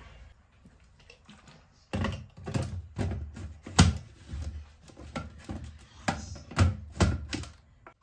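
Irregular sharp plastic clicks and knocks, roughly two a second, as the fruit-filled jar of an ECX countertop blender is handled and fitted onto its base. Two knocks are louder than the rest. The blender motor is not yet running.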